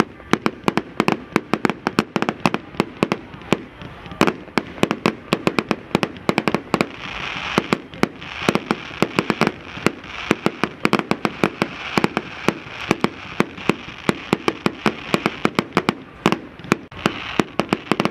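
Fireworks display going off: a dense run of bangs from bursting aerial fireworks, several a second, joined by a steady hiss from about seven seconds in.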